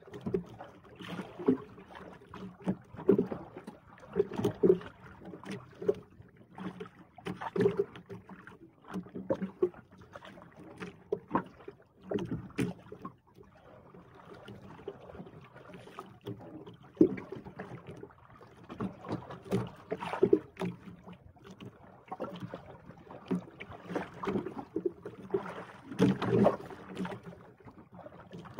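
Irregular knocks and splashes of choppy water slapping against the hull of a small outrigger boat, with handling knocks as a jigging rod is pumped and reeled against a hooked fish.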